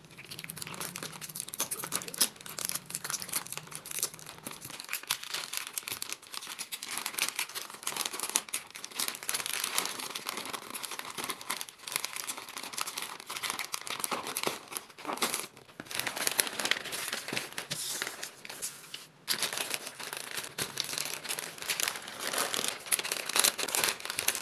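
A glossy pink wrapping sheet and plastic snack packets crinkling and crackling as they are handled, folded and crumpled around a bundle of snacks. The rustling runs on with a few brief pauses.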